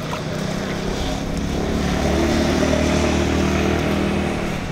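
A motor vehicle's engine passing by, its steady note growing louder to a peak about two to three and a half seconds in, then fading away.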